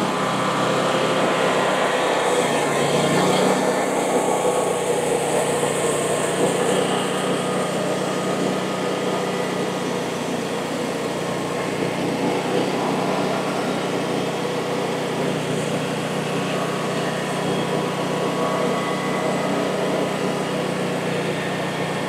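Frontier OS35 portable bandsaw mill's small gasoline engine revving up about three seconds in, then running steadily under load as the mill cuts slowly through a cedar log with a dull blade.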